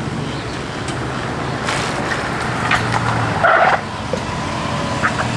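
Chevrolet Silverado 1500 pickup engine running steadily as the truck pulls in, with a brief louder, higher-pitched sound about three and a half seconds in.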